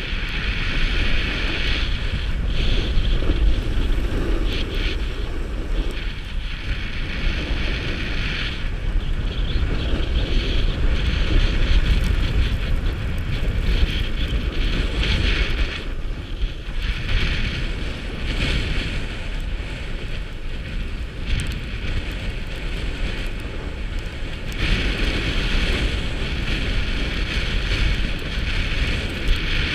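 Wind rushing over an action camera's microphone during a downhill ski run, with the hiss of skis sliding on packed snow swelling and fading through the turns.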